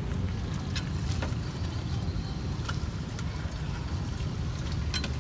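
Street background: a steady low rumble with a few light clicks and clinks scattered through it.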